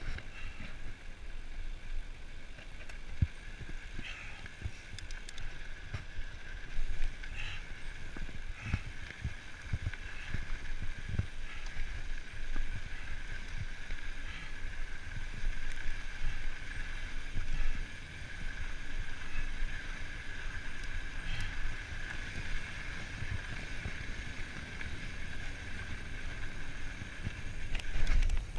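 Mountain bike rolling fast over a dusty dirt singletrack: tyre rumble on the dirt with knocks and rattles from the bike over bumps, a few harder jolts, and wind on the microphone, under a steady high buzz.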